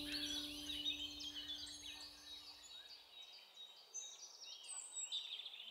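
Songbirds singing faintly, many short chirps and warbles overlapping. Under them the last chord of an acoustic guitar rings and fades away about three seconds in.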